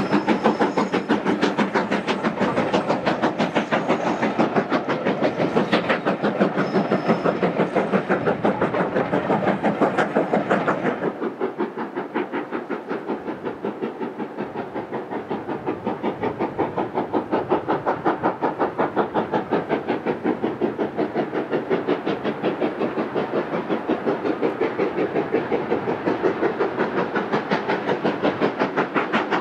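LNER B1 class 4-6-0 steam locomotive 61264, a two-cylinder engine, working a five-coach train with a fast, even beat of exhaust chuffs and the rumble of the coaches on the rails. About eleven seconds in the sound turns duller and quieter, then the beats slowly grow louder again as the engine draws nearer.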